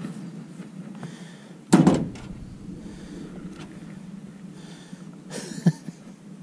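Two thumps on the aluminum jon boat, a loud one about two seconds in and a smaller one near the end, as a freshly landed crappie is swung aboard and handled for unhooking, over a steady low hum.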